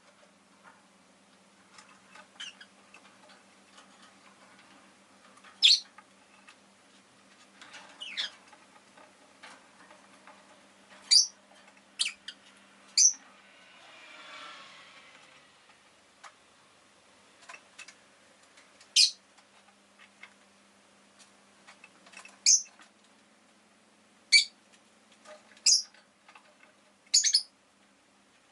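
Rosy-faced lovebird giving short, sharp, high chirps, about ten spaced irregularly, over a faint steady hum. A soft swell of noise rises and fades about halfway through.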